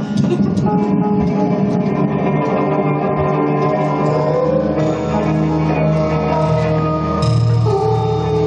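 Live band music led by electric guitar, with held notes over a steady low bass line.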